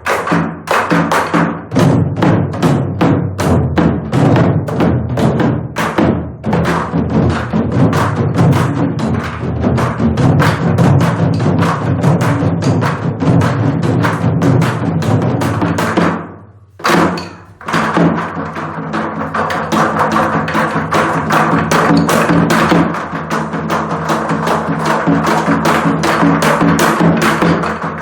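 Ogomu drumming: Korean buk barrel drums struck in a fast, dense rhythm over a steady traditional music accompaniment. The drumming breaks off for about a second a little past halfway, then picks up again.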